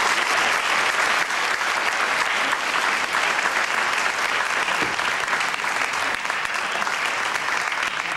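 Audience applauding: a steady, dense clapping of many hands that eases off slightly near the end.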